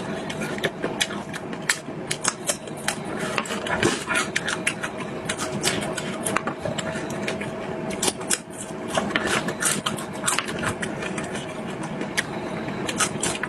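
Close-miked eating sounds: rapid, irregular wet clicks and smacks of chewing, with a faint steady hum underneath.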